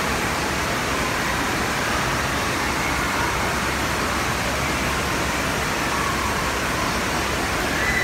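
Steady rushing water noise of an indoor water park, with faint distant children's voices echoing through it.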